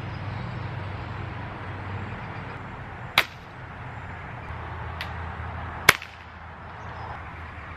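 Two shots from a Daisy 880 multi-pump pneumatic air rifle, heard from about 15 yards and fired into the air with no pellet impact. About three seconds in comes a shot through a DonnyFL Ronin suppressor. Near six seconds in comes a louder, sharper unsuppressed crack, with a faint click between the two.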